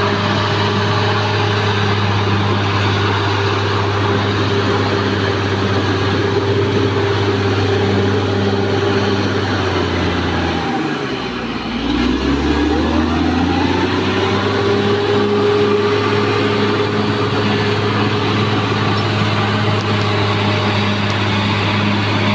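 Caterpillar D6R XL bulldozer's diesel engine running steadily at working revs. About halfway through, the engine speed sags and then climbs back up.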